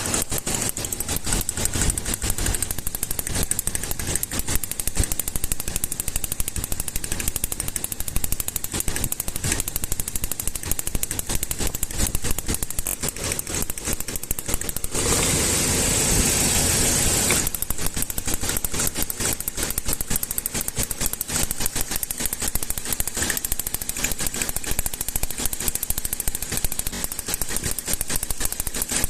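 Toyota petrol engine running with a fast, even train of sharp clicks, with a louder stretch of about two seconds a little past halfway. The clicking goes with an ignition current leak in the plug leads and coils, the cause of the engine's knocking and misfire.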